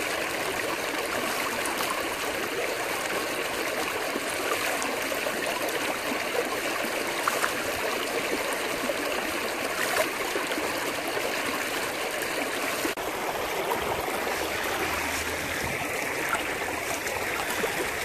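Creek water rushing steadily through an aluminium gold-prospecting sluice box over gravel, with a few faint clicks.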